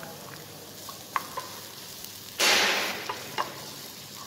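Diced vegetables frying in a small pan, with a low steady sizzle and a few light knocks of a wooden spatula against the pan. About two and a half seconds in there is a loud half-second burst of sizzling.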